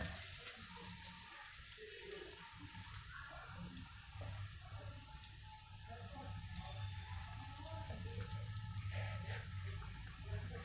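Mushroom pakodas deep-frying in hot oil in a kadai: a steady sizzle full of fine crackles, over a low hum.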